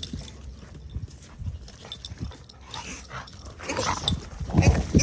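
Dogs play-fighting: scuffling, knocks and short dog sounds that get much louder and busier about three and a half seconds in.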